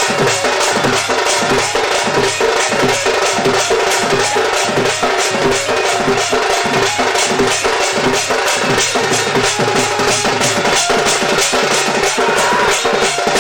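Sambalpuri danda dance music: fast, steady drumming, about four strokes a second, the low drum strokes dropping in pitch, with bright metallic clashes on the beat.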